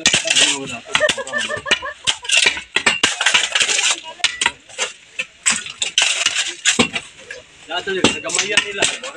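Metal shovel digging into stony soil, its blade scraping through gravel and clinking repeatedly against rocks.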